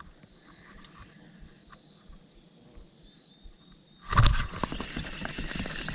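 Steady high-pitched drone of insects such as crickets. About four seconds in comes a sudden loud knock, followed by irregular clicks and rustling.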